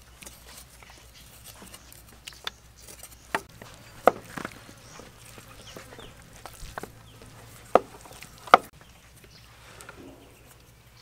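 Cleaver and knives knocking on a wooden board while ginger is peeled and cut: a handful of sharp, irregular knocks, the loudest about four seconds in and twice more around eight seconds.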